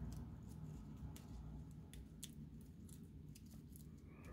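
Faint, irregular rustling and small crackles of a dry raffia bow as fingers pinch and shape its loops.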